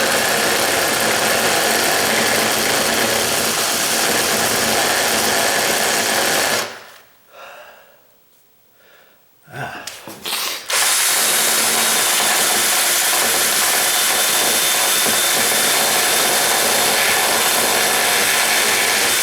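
Power drill running steadily as its bit reams wood out of a door jamb's strike plate opening. It stops about six and a half seconds in, gives a couple of short blips, then runs steadily again from about eleven seconds on.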